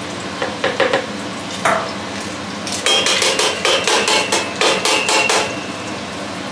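A spoon knocking against a metal pot and the container as the minced onion and pepper are emptied out: a few knocks near the start, one about a second and a half in, then a quick run of clanks with a metallic ring from about three to five and a half seconds. A steady hum runs underneath.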